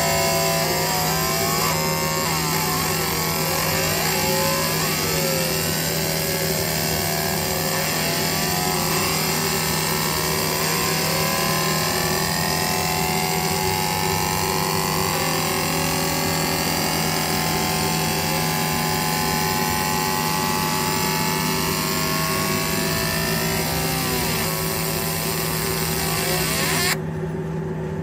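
Laser engraver marking a metal plate: a steady high hiss with warbling, gliding whines as the beam sweeps across the design, over a constant machine hum. Near the end the high sound cuts off suddenly as the engraving finishes, leaving only the hum.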